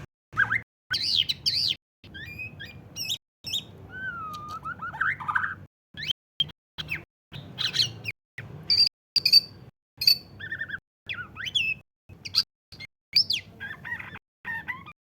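Bornean white-rumped shama in full song: a varied run of clear whistles, slurred rising and falling notes and short chattering phrases, broken by brief pauses.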